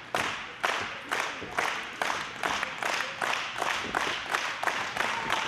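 A crowd clapping in unison, about two claps a second, echoing around a large hall. Near the end the beat breaks up into looser applause.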